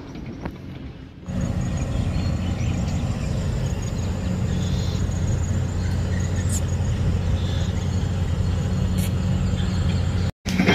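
A motor running with a steady low hum, which starts suddenly about a second in and cuts out briefly near the end.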